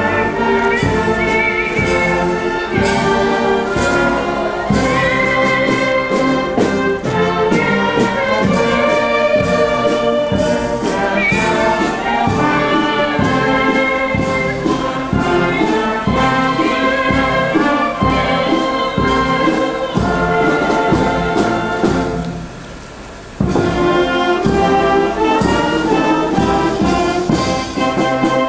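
Marching band playing a slow processional tune on trumpets and other brass over a steady drum beat. The music drops away for about a second near the end, then comes back in.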